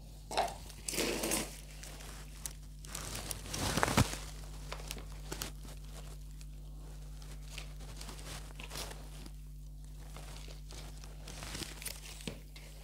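Hands scooping potting soil and pressing it into a plastic plant pot around a newly set plant: irregular rustling, crunching scrapes, with one sharper knock about four seconds in.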